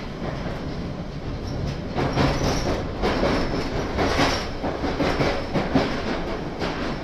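London Underground 1992 Tube Stock train heard from on board, running through the deep-level tube tunnel: a steady rumble of wheels on rail, with a clatter of rail joints that grows louder about two seconds in. A faint high wheel squeal runs through the middle.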